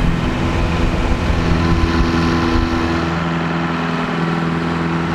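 Longtail boat's engine running steadily under way, a loud even drone over the rush of wind and water.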